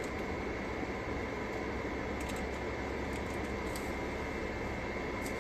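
Sprinter van idling, heard from inside the cabin as a steady low rumble and hiss with a faint high steady tone.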